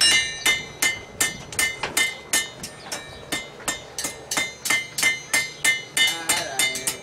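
Blacksmith's hammer striking metal on an anvil in a steady rhythm of a little under three blows a second, each blow ringing briefly. Near the end the blows come faster and lighter.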